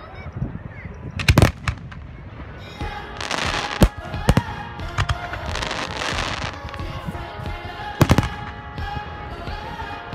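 Fireworks display: aerial shells bursting with sharp bangs, a cluster about a second and a half in and a double bang about eight seconds in, over a dense crackle of crackling stars through the middle.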